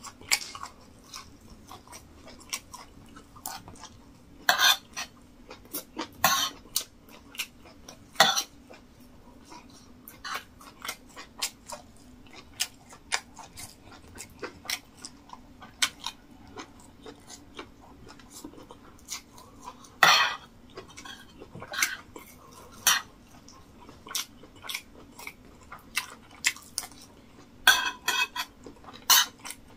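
Close-miked eating: chewing and mouth smacks on rice and meat, with a spoon and fork clinking and scraping on a plate. The sharp clicks come irregularly, a few much louder than the rest.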